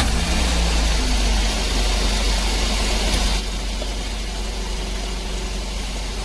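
Daihatsu Dabbab van engine running steadily at idle, a low drone with hiss, a little louder for about the first three seconds before settling. The idle is now even after the electronic throttle body was cleaned and set.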